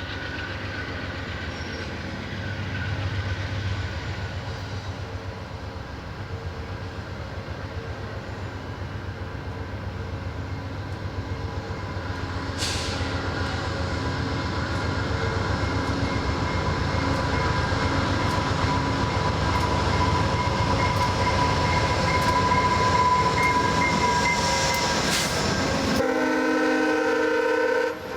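VIA Rail passenger train hauled by a GE P42DC diesel locomotive, its engine and wheels growing steadily louder as it comes in. A steady high-pitched squeal builds through the middle, and a chord-like multi-note horn sounds near the end.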